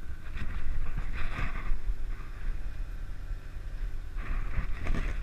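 Steady low drone of a sportfishing boat's engine with wind on the microphone, plus two short hissing rushes, one about a second in and one near the end.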